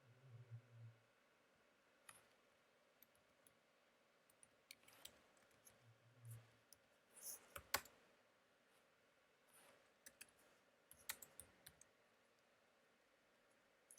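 Faint computer keyboard keystrokes and clicks in irregular clusters as code is typed, a little louder around the middle of the stretch and again later on.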